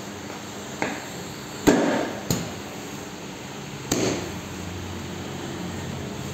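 Four sharp knocks about a second apart, the second the loudest, as the motorcycle's seat is pressed down and clunks into its mounts.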